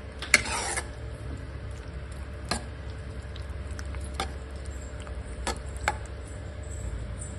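A spoon stirring thick radish dal in a pot. It knocks sharply against the pot once just after the start, then a few more times, over a low steady hum.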